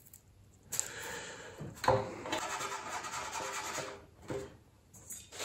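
600-grit wet-and-dry sandpaper rubbed back and forth over a plastic model ship hull: wet sanding, starting about a second in and stopping near the end. A sharp knock about two seconds in.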